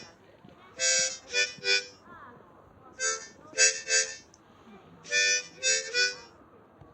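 Harmonica-like reed tones playing a short phrase of three notes, one longer note and two short ones, repeated about every two seconds.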